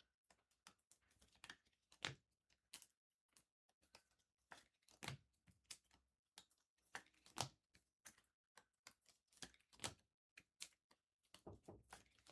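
Faint, irregular clicks and taps, about one or two a second.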